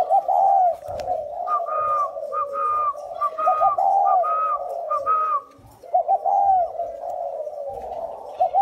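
A pair of spotted doves cooing in overlapping phrases: one low, deep voice in arching coos, and a higher whistle-like voice in a run of short repeated notes over it in the first half.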